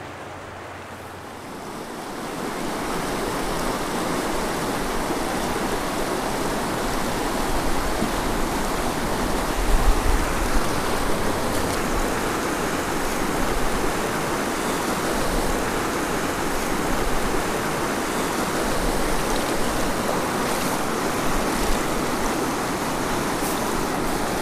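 Fast mountain river rushing over rocks and riffles: a steady, full rushing of water that swells up in the first two seconds and then holds even.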